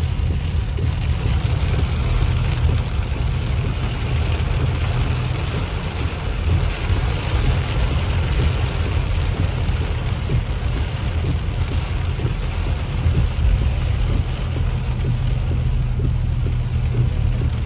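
A car driving in heavy rain, heard from inside the cabin: a steady low road and engine rumble with rain striking the car, scattered small taps of raindrops from about six seconds in.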